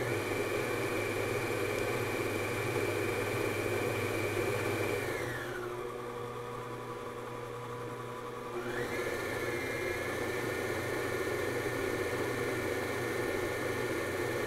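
Stand mixer motor running at speed, its beater churning thick cheesecake batter with a steady whine. About five seconds in, the whine slides down in pitch as the speed is turned down for the next egg to go in. About three seconds later it climbs back up to speed to beat the egg in.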